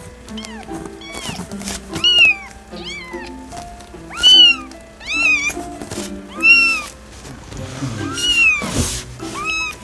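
A tiny newborn kitten mewing over and over while held to a nursing bottle: about nine thin, high-pitched cries, each rising then falling in pitch, roughly one a second.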